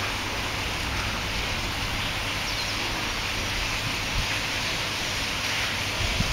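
Steady outdoor background noise: an even hiss over a low rumble, like wind or distant water, with a faint high chirp about two and a half seconds in.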